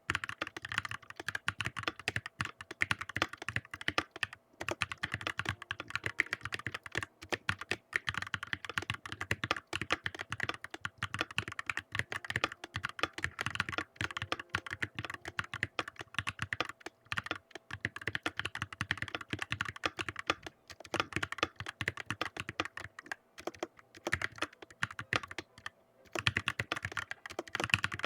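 Fast, continuous typing on a Red Dragon Draconic Pro 60% mechanical keyboard: a dense stream of key clacks, broken by a few brief pauses.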